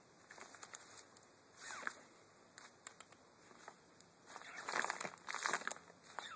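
Plastic IKEA bag rustling and crinkling in irregular bursts as a kitten plays in it, loudest about five seconds in.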